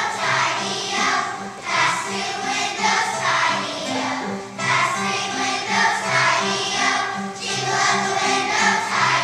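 Children's choir singing in unison, with a steady pattern of short low accompaniment notes beneath the voices.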